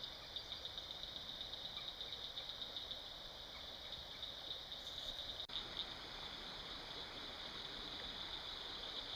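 A steady, high-pitched, rapidly pulsing chorus of calling wildlife over a low, even river murmur, with a brief break about five and a half seconds in.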